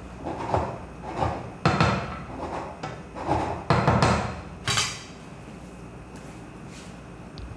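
Wooden spoon stirring beef stew, thickened with cornstarch, in a stainless steel pot, scraping and knocking against the pot's sides in an uneven run, ending with a sharp clack about five seconds in.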